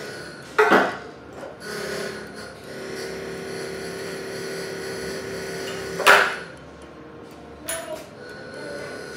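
Sharp metal knocks and clanks from handling the tooling on a crankshaft balancing machine: a loud one about half a second in, the loudest about six seconds in, and a smaller one near the end, over a steady faint hum.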